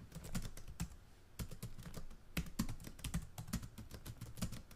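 Computer keyboard typing: a fast, uneven run of key clicks.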